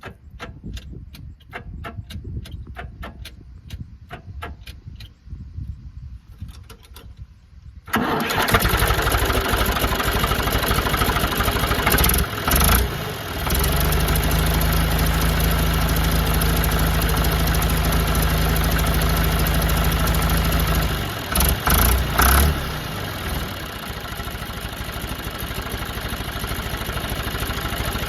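John Deere tractor engine starting. A series of regular knocks for about eight seconds, then the engine catches suddenly and runs loudly. It holds a steady higher speed for several seconds, then drops back to a steady idle.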